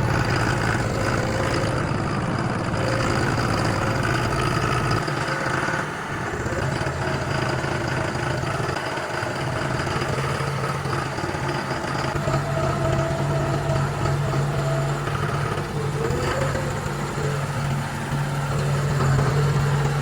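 A farm vehicle's engine running steadily as it is driven over wet pasture, getting a little stronger about halfway through.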